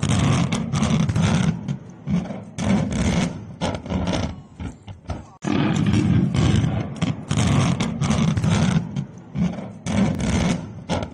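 Distorted booms and rumbling from the demolition blast of a long bridge, coming in irregular loud pulses. It cuts off briefly about five seconds in and starts again.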